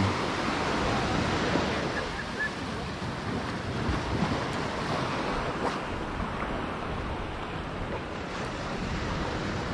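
Small ocean waves breaking and washing up a sandy beach in a steady surf wash, with wind rumbling on the microphone.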